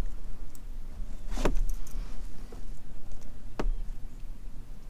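Wind rumbling over the microphone, with two sharp knocks, one about a second and a half in and one near the end, and a few fainter clicks between them, from the angler moving about in the kayak.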